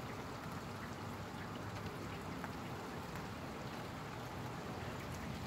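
Steady hiss of rain falling, with the odd single drop ticking now and then.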